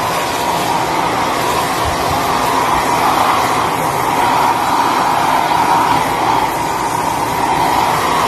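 White handheld hair dryer running steadily at close range: a rush of air with a steady whine, blowing on a cat's wet fur.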